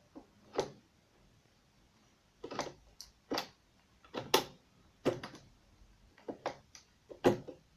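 Sharp clicks and knocks from a New Home sewing machine's controls as its stitch settings are changed, about a dozen at uneven intervals, with no motor running.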